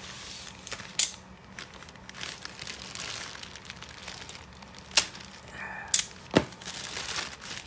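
Plastic poly shipping mailer crinkling and rustling as it is handled and opened, with a few sharp cracks, the loudest about one, five and six seconds in.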